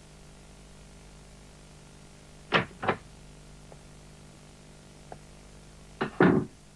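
Wooden door sound effects over a steady low hum: two sharp clacks about two and a half seconds in as the door opens, then a louder double bang near the end as it shuts.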